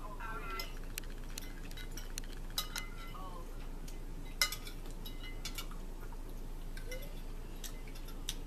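Metal forks clinking and scraping against ceramic dinner plates while eating, in scattered light clicks, the loudest about four and a half seconds in.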